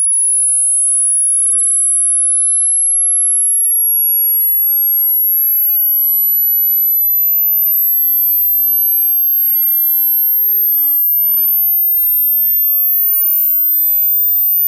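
Hearing-test tone: a single very high, pure sine tone, steady in loudness, climbing slowly upward in small steps. It is a frequency sweep for probing the upper limit of a listener's hearing.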